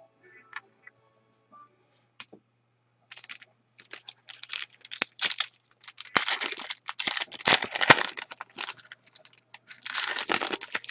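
A hockey card pack being handled and opened: the wrapper crinkling and tearing and cards rustling and flicking, in quick rustling bursts from about three seconds in.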